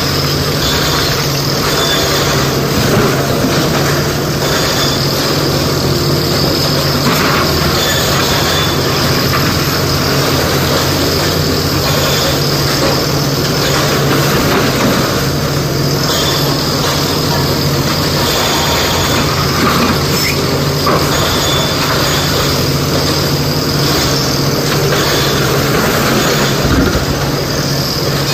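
SANY SY225 excavator's diesel engine running steadily under load, with rock clattering now and then as its bucket digs stone and tips it into a dump truck's bed.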